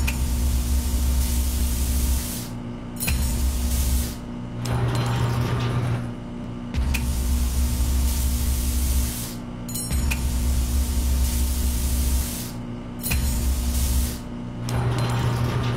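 Synthetic laser-cutting sound effect: a steady hiss over a held tone, with a low hum that cuts in and out every two to three seconds.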